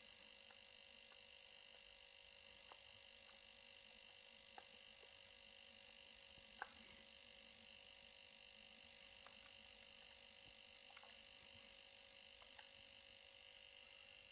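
Near silence: faint room tone with a steady electrical hum and a few scattered faint ticks, the loudest about six and a half seconds in.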